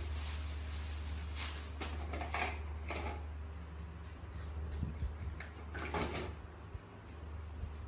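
A series of short knocks and rustles of things being handled, in the manner of a cupboard or door, over a steady low hum.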